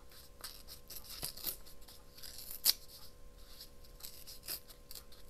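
Paper being cut with scissors: a few scattered, irregular snips with light paper rustling between them, the sharpest snip about two and a half seconds in.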